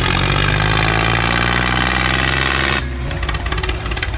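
Tractor engine running loud and steady, turning to a rougher, more uneven note about three seconds in.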